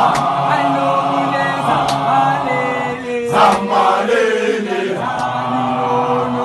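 Men's group singing a gwijo, a South African unaccompanied chant: many voices together holding long notes in harmony.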